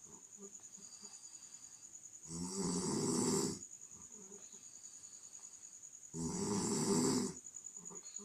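A person snoring loudly: two long snores about four seconds apart, each lasting over a second, with a steady high-pitched trill in the background.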